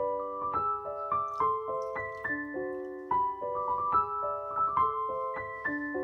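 Background music: a gentle piano melody of steady single notes.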